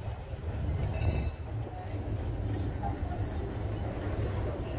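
Heritage double-decker tram running on its rails, heard from on board, with wind buffeting the smartphone microphone as a steady low rumble.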